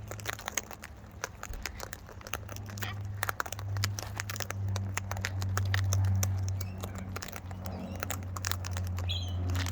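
Small wild birds pecking and cracking seed off a person's hand: a dense, irregular run of quick sharp clicks and crackles over a low steady hum.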